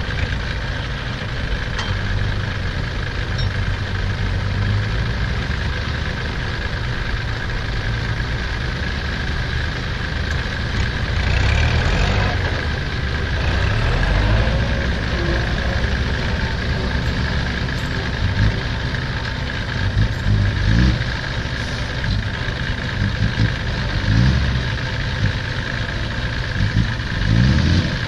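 Diesel engines of a Kubota tractor and a six-wheel dump truck running at idle, a steady low drone with a thin steady whine above it. In the second half come irregular low swells.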